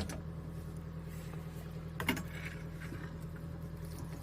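A steady low mechanical hum, like a small motor running, with two sharp clicks, one at the start and one about two seconds in.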